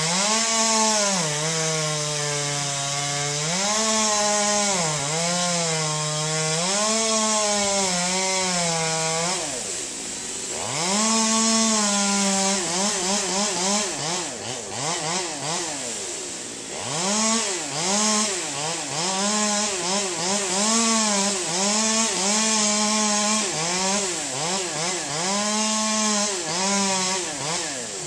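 Two-stroke chainsaw cutting wood, its engine pitch dipping and recovering again and again as the chain loads up in the cut. It drops back to idle twice, about ten and sixteen seconds in, then revs up again.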